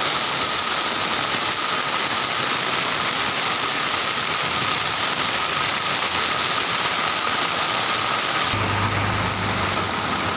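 Heavy rain pouring steadily onto road and flooded street, a constant hiss. A low steady hum joins about eight and a half seconds in.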